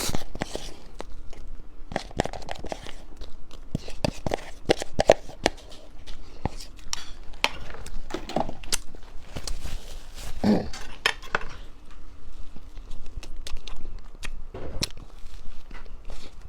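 Close-miked crunching and chewing of crisp, crunchy food: irregular sharp crackles of bites and chews following one another.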